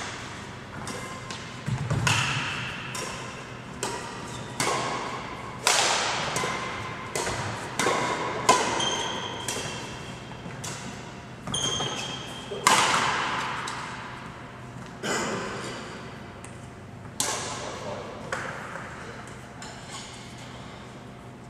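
Badminton rally: racket strikes on the shuttlecock, a sharp crack every second or two, each ringing on in the echo of a large sports hall, with a few short squeaks of shoes on the court floor.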